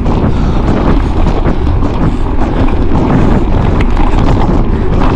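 Heavy wind buffeting on a moving microphone, with a dense, steady low rumble and scattered faint ticks through it, as from a camera carried along on a bikejoring bike during the race.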